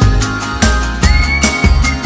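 Background music with a steady, bass-heavy beat and a high, held melody line that slides up in pitch and later back down.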